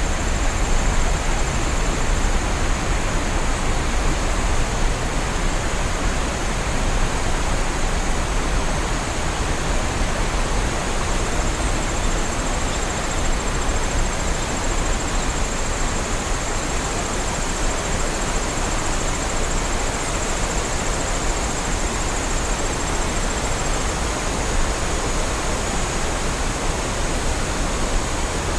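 Waterfall: a steady, even rush of falling water, with a thin, high, continuous whine held above it.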